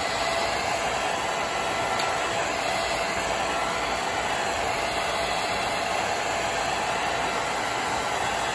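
Hair dryer running steadily, a constant blowing rush with a faint steady whine in it.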